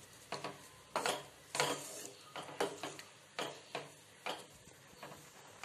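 A ladle stirring a thick tamarind gravy in a kadai, scraping and knocking against the pan in short strokes about twice a second.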